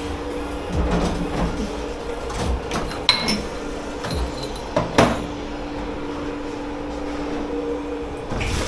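Dish-pit washing up: crockery and metal pans knocking and clinking over a steady machine hum, with a ringing metallic clink about three seconds in and a sharp knock about five seconds in.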